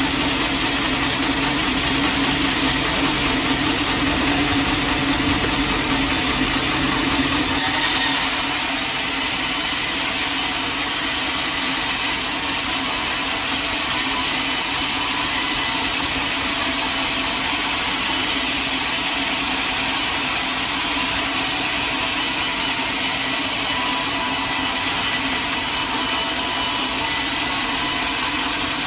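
Sawmill blade sawing lengthwise through a log, running steadily. About a quarter of the way in, the sound changes abruptly: the low machine hum drops back and a brighter, hissing cutting noise takes over and holds steady.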